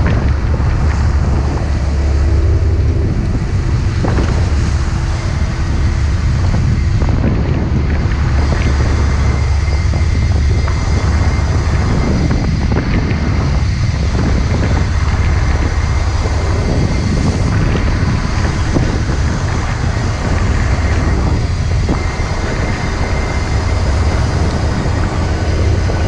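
Wind buffeting the microphone over the steady low drone of a sea-rescue vessel's engines, with the wash of the sea around the stern.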